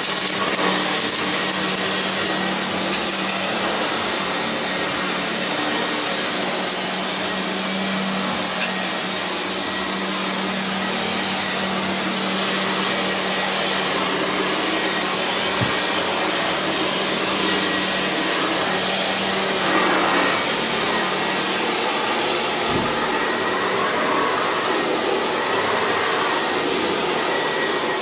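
Household vacuum cleaners running steadily: an even rushing of air with a steady high-pitched motor whine and a low hum underneath.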